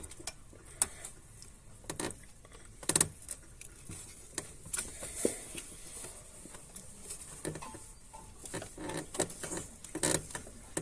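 Scattered light clicks and clinks of hands and tools working around an engine's belt and pulley, with a few sharper knocks about 3 s in and a cluster near the end.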